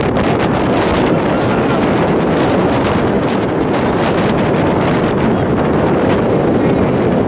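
Wind buffeting the microphone: a loud, steady rushing noise with no clear tones.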